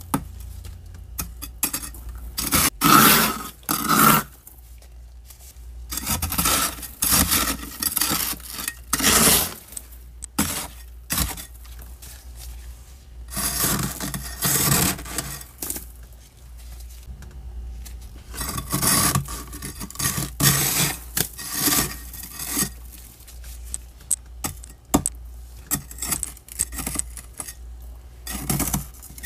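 Thick freezer frost being scraped and crunched loose with a metal tool, in irregular bursts of scratchy strokes with short pauses between them. A low steady hum runs underneath.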